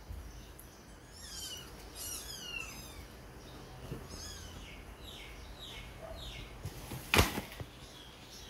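Young kittens mewing: a run of short, high, falling cries, repeated several times. About seven seconds in there is one sharp knock, the loudest sound.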